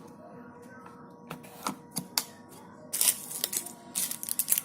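Handling noise from a dishwasher tablet: sharp clicks and crisp crackly rustling. It comes in scattered ticks at first, then louder clusters about three seconds in and again near the end.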